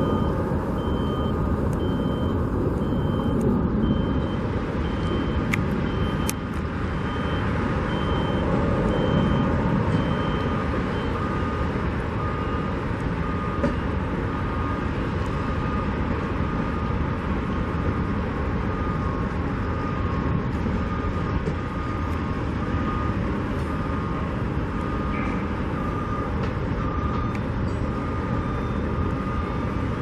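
Backup alarms on construction vehicles beeping in a steady, repeating pattern over a continuous rumble of engines and traffic. A second, higher-pitched alarm stops partway through.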